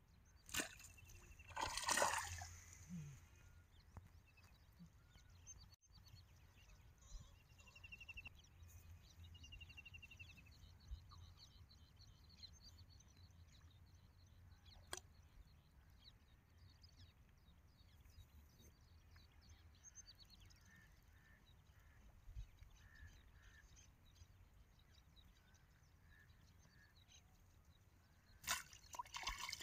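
Near silence by a pond, with faint chirping and a brief noise about two seconds in. Near the end, a sudden burst of splashing as a hooked fish thrashes at the water's surface.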